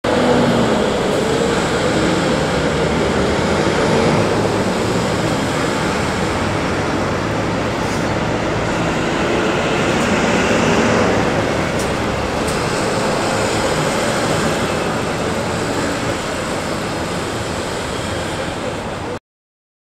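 Road traffic passing through an intersection: steady engine and tyre noise from cars, a truck and a bus going by. It cuts off suddenly near the end.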